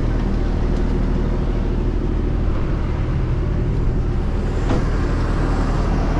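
John Deere 17G mini excavator's diesel engine running steadily, with a single short knock about three-quarters of the way through.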